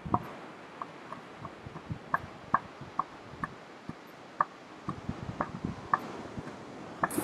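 Bull northern elephant seal giving its threat call during a dominance display: a run of sharp, rhythmic pulses, about two to three a second.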